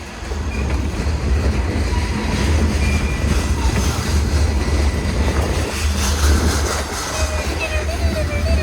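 Freight train cars rolling past on the rails: a steady, heavy low rumble with wheel and rail noise.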